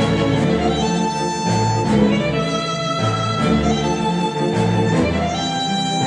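Instrumental music with a held string melody over a steady beat of about two strokes a second, played back through KEF R3 bookshelf speakers driven by a NAD C 338 integrated amplifier.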